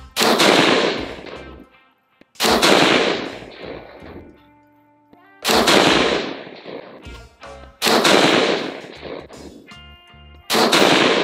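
Five single shots from a Stag Arms Retro AR-15 rifle with a 20-inch barrel, firing .223 rounds. The shots come about two to three seconds apart, each a sharp crack with a long echoing tail.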